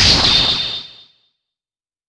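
Transition whoosh sound effect: a loud rushing swish with a faint whistle in it, fading away about a second in.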